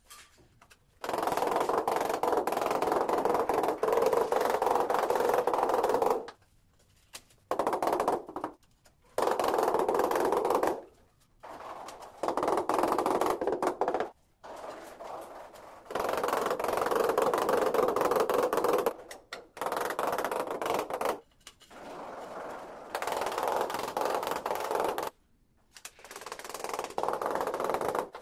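Handheld tile vibrator buzzing against a large porcelain floor tile, settling it into the wet mortar bed. It is switched on and off in about ten bursts lasting one to five seconds each.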